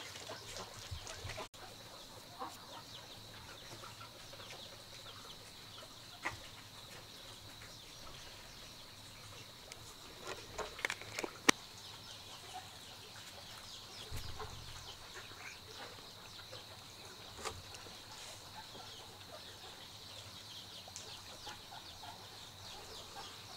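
Quiet farmyard background: chickens clucking now and then over a steady high-pitched hum, with one sharp click a little before halfway.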